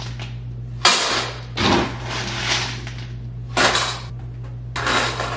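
A metal spoon and fork clinking and scraping against a stainless steel dog bowl in several short bursts, about one a second, over a steady low hum.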